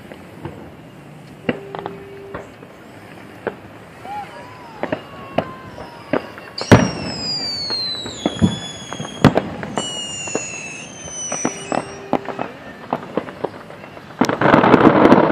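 Fireworks going off over the harbor: many sharp bangs of bursting shells, whistling fireworks whose pitch falls twice in the middle, and near the end a loud dense burst of crackling as sparks shoot up from the launch barge. A low steady tone sounds twice, about a second each time.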